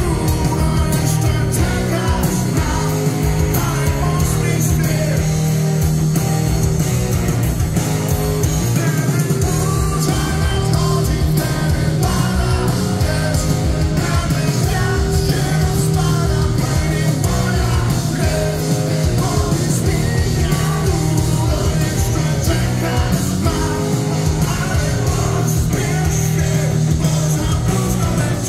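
Rock band playing live: a male singer over electric guitars, bass guitar and drums.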